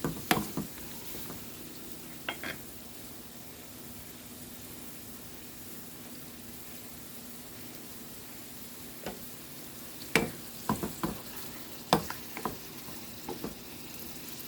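Pieces of lamb testicles frying in olive oil in a pan on low heat: a steady, quiet sizzle. A few sharp clicks and taps come near the start and more in the last five seconds.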